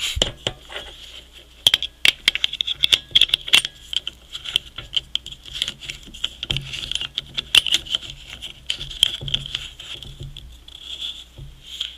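Irregular metal clicks and rattles as the head and gas-charger fitting of a soda-siphon water carbonator are twisted and handled, over a thin steady hiss.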